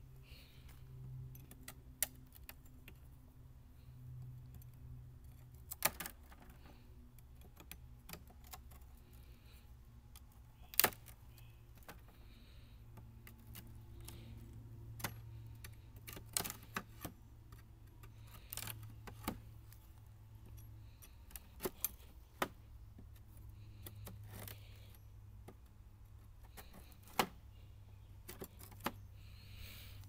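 Irregular sharp clicks and knocks as a metal hive tool prys and scrapes at the wooden frames and wax comb of a beehive, over a faint steady low hum.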